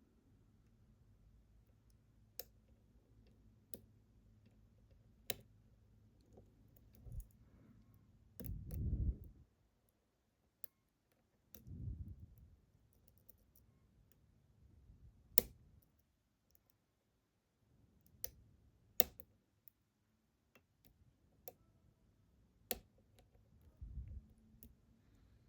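Lock-picking tools working in a Ruko 600 lock: irregular sharp metallic clicks, a dozen or so, with a few dull low bumps as the lock is handled.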